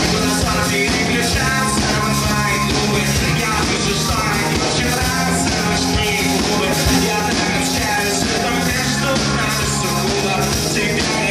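Live rock band playing at full volume: a male singer on a microphone over electric guitar, keyboard and drums, heard through the venue's PA.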